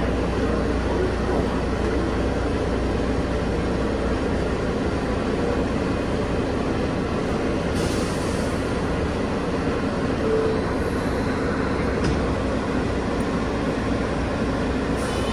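Bombardier R143 subway car running at a steady speed: continuous wheel and track noise with a faint steady propulsion hum.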